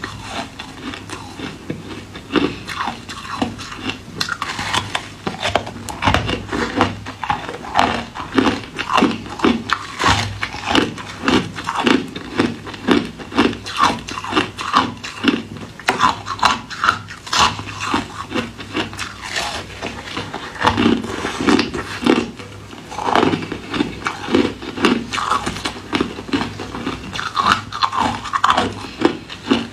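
Ice being bitten and chewed close to the microphone: a steady run of crisp crunches, about two a second, with a short pause near the end.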